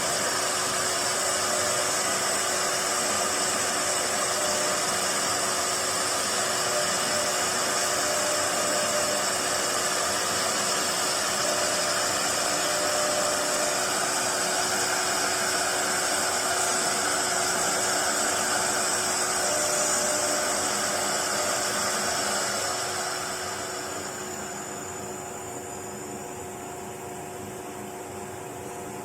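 Four-spindle CNC router running a job: a steady high-speed spindle whine and machine noise. About 23 s in it eases off to a lower, quieter hum.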